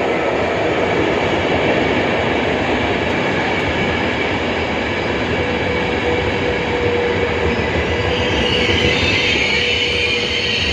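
A train running past on the rails: a loud, steady rumble and rush of wheels, with a thin steady tone joining about halfway through.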